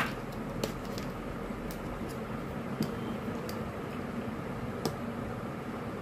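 Steady background hum and hiss with a handful of light, sharp clicks, the loudest right at the start, as the switch and the series-board test probes are handled.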